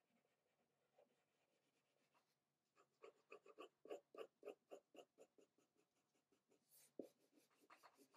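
Pencil shading on drawing paper: faint for the first couple of seconds, then a quick, even run of short back-and-forth strokes, about five a second, laying down tone in cross-contour lines. A single tap a little before the end, then a few more strokes.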